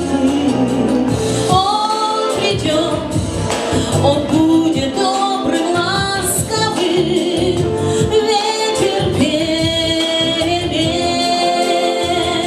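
A woman singing a slow melody over a backing track, her voice holding and wavering on long notes.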